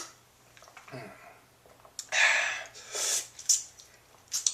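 Several short breathy puffs of air from a person, the first and loudest about two seconds in, with a faint hum about a second in and a small click near the end.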